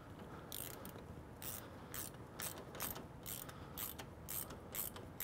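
Ratcheting driver with a T30 Torx bit tightening a shoulder screw into a soft-top's side bow: faint, evenly spaced ratchet clicks about two a second.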